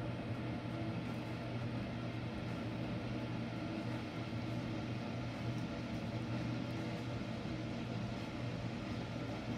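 Steady low mechanical hum with an even hiss above it, unchanging throughout.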